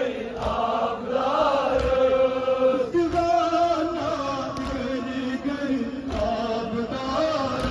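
Men's voices chanting a Kashmiri noha, a Shia Muharram mourning lament, with long held notes. The melody shifts pitch about three seconds in, and a few dull thumps sound under the chant.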